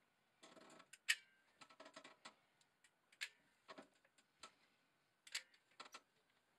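Faint, scattered clicks and taps of a manual caulking gun being squeezed and handled while beads of caulk are run along drywall seams, with a brief scrape about half a second in.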